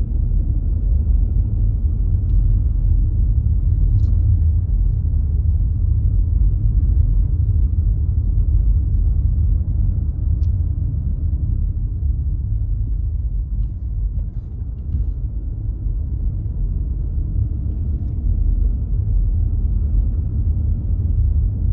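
Steady low rumble of a car driving, the road and engine noise heard from inside the cabin, easing slightly about two-thirds of the way through.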